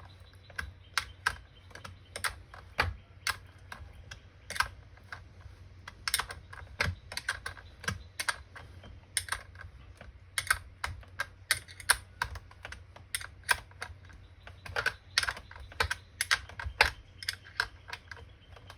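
Sharp, irregular clicks of a hand tool tightening the 5/16 self-locking nuts onto the negative terminal post of a jump starter's replacement battery, a few clicks a second.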